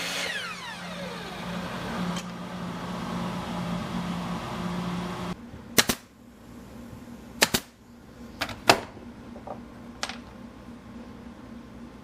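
A power tool's motor winding down with a falling whine, over a steady hum that cuts off suddenly about five seconds in. Then come several sharp knocks and clicks, some in quick pairs.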